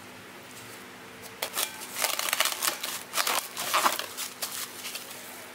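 Plastic wrap crinkling and rustling as a ball of bread dough is wrapped in it. A run of crackly rustles starts about a second and a half in and stops shortly before the end.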